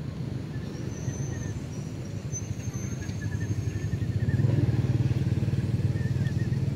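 An engine running steadily with a low, pulsing hum, louder from about halfway through, with faint bird chirps above it.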